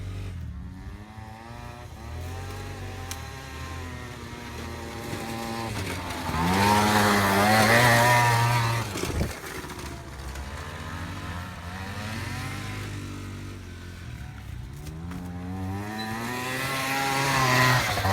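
Small moped engines revving and changing pitch as riders pass, loudest about halfway through and again near the end. A brief thump just after the first loud pass.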